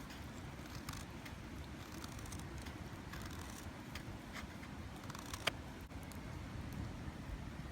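Wood fire in a fire pit crackling: scattered small pops and one sharper snap about five and a half seconds in, over a low steady rumble.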